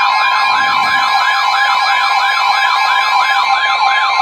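Emergency alert tone sounding ahead of a severe thunderstorm warning: a steady high tone together with a siren-like warble that sweeps up and down about four times a second.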